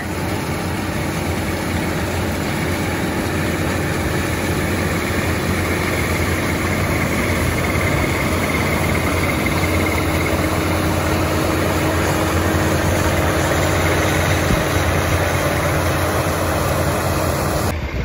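Gleaner F2 combine running while it harvests soybeans: a steady engine and machinery drone that grows a little louder in the middle as the combine passes close by, cutting off abruptly near the end.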